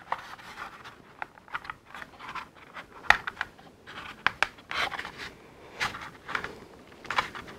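Hard plastic toy parts of a Hasbro Tatooine Skiff being handled and fitted together: scraping and rubbing with repeated small clicks as a side panel is worked onto the hull, with one sharp snap about three seconds in.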